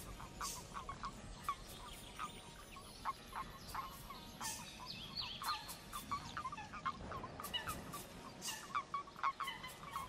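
Faint calling of a flock of birds: many short calls repeated in quick, irregular succession, with a higher twittering about halfway through.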